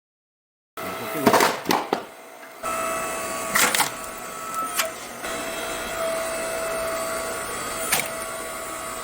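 8-ton electric hydraulic log splitter running with a steady motor-and-pump hum, with several sharp cracks as logs split under the ram.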